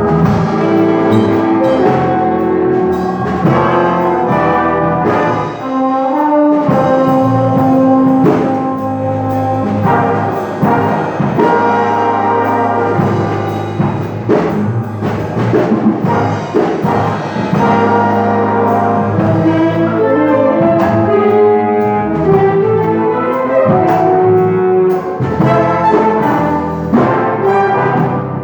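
Big band playing an instrumental passage: saxophones, trombones and trumpets sounding chords together over bass and drums.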